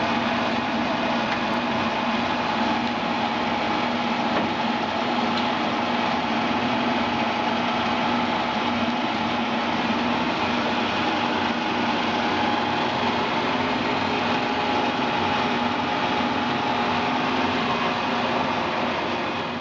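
Warner & Swasey No. 3 turret lathe running, its 7.5 HP motor and geared headstock giving a steady, even mechanical hum with a few constant tones.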